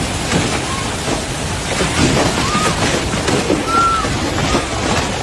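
Steady rushing water with a few short, high cries or shouts over it.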